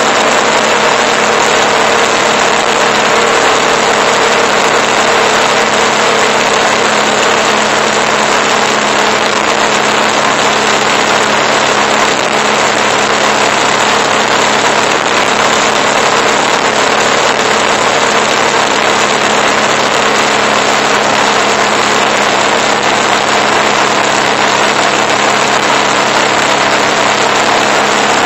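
Motorcycle cruising at a steady speed: loud, steady wind rush over the bike-mounted microphone, with the engine's even hum underneath and no change in revs.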